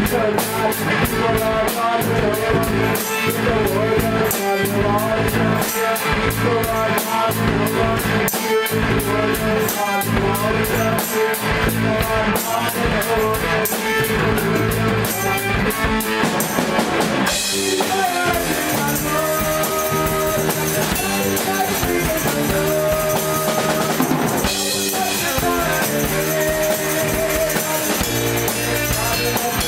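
Rock band playing a song on drum kit, guitars and bass, with fast, steady drumming; about 17 seconds in the drumming breaks off and the band shifts into a new section of held notes.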